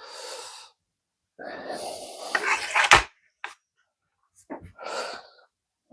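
Hatsan Combo 900X break-barrel air rifle being cocked: a strained noise of about a second and a half as the barrel is levered down, ending in one sharp, loud click as it latches, then a smaller click. Short breathy sounds come before and after.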